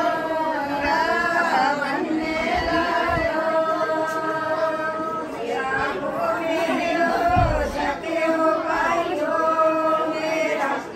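A group of women singing together in unison without instruments, on long held notes.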